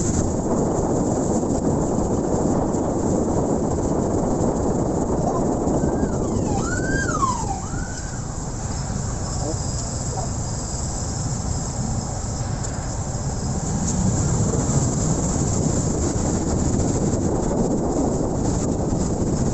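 Wind rushing over the microphone and road noise from a motorcycle riding in city traffic; the noise eases for a few seconds while the bike is held up in traffic, then builds again as it moves off. About a third of the way in, a few short rising-and-falling glides, siren-like, sound briefly.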